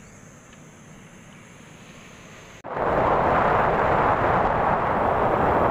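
A quiet outdoor ambience with a steady high insect drone is cut off abruptly a little over halfway through by a loud, steady rush of wind and engine noise from a motorcycle being ridden at speed.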